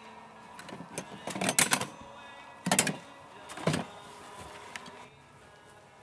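Handling noise of plastic parts: several short clattering knocks and rustles as a small switch and plastic pipe fittings are picked up and moved around in a crate.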